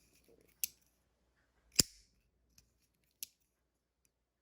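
Boker Kalashnikov push-button automatic knife's spring-driven blade snapping open and locking: three sharp metallic clicks about a second apart, the middle one loudest.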